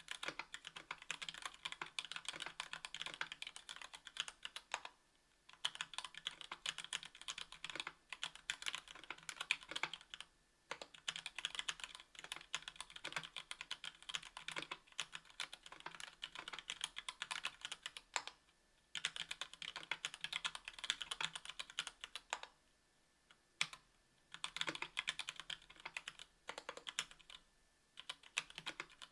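Typing on a mechanical keyboard with stock Gateron Black Ink linear switches (60 g), in an aluminum KBDfans Tofu 60% case with an aluminum plate and GMK keycaps. Fast runs of keystrokes, broken by several brief pauses.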